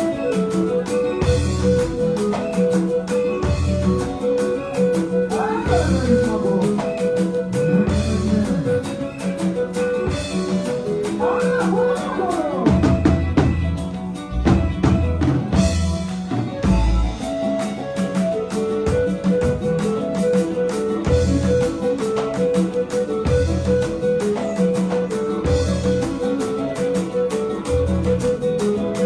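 Music with a drum kit keeping a steady beat and guitar, with low bass drum hits about every second.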